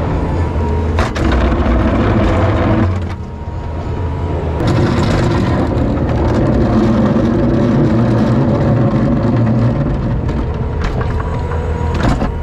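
Engine of a farm loader running steadily, its sound dropping for a moment about three seconds in and then building back up, with a sharp crack about a second in and another near the end, which fits snow being cleared off a silage pile.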